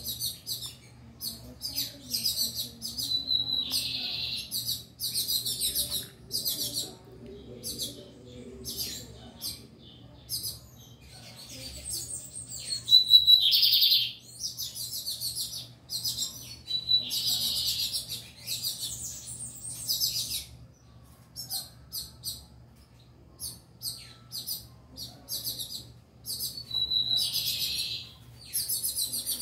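Male lined seedeater (bigodinho) singing in its cage: runs of quick, high chirping notes, broken four times by a louder buzzy phrase, the loudest about halfway through.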